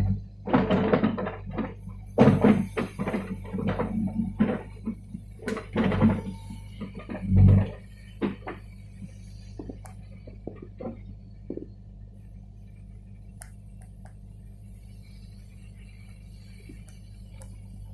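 Case 580 backhoe's diesel engine running steadily, with a run of clanks and knocks in the first half that die away, leaving the engine alone.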